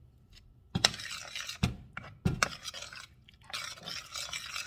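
A utensil knocking sharply against cookware three times, then a stretch of scraping and stirring in a pot of thick cream sauce as chicken bouillon is added.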